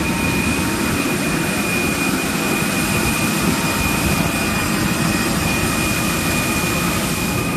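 Parked jet airliner running: a steady high-pitched whine over a dense low rumble.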